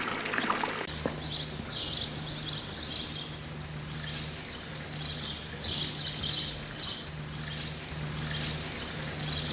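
Small birds chirping again and again, over a low steady hum that begins about a second in.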